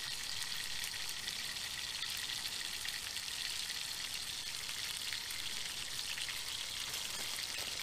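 Bacon frying in a pan: a steady sizzle.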